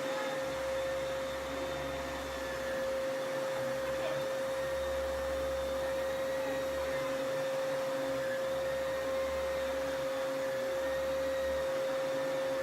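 Vacuum cleaner running steadily, a constant high whine over the rush of air, with a low rumble that swells and fades as it is pushed about.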